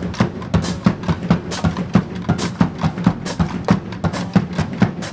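A marching band drumline playing a cadence together: a quick, steady run of sharp drum strokes with deep drum hits underneath.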